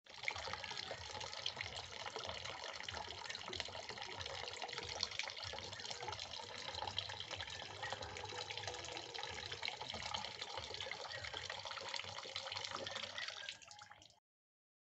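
Tap water running in a thin stream into a blue plastic bucket, splashing steadily. It fades and stops near the end.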